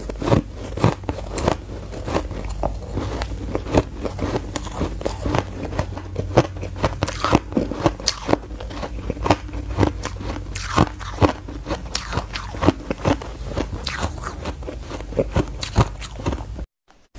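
Close-up chewing of a mouthful of shaved ice: a quick, irregular run of crisp crunches and crackles, several a second. It breaks off into a moment of silence near the end.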